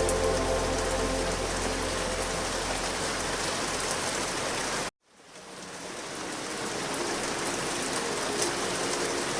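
Steady rain ambience under soft ambient music. The music fades out and the sound cuts to silence for a moment about five seconds in, as one track ends and the next begins. The rain then fades back in, and soft notes return near the end.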